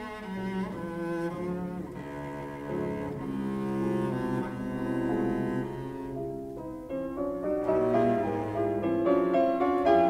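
Instrumental background music: a slow melody on bowed strings with piano accompaniment, its notes held and wavering.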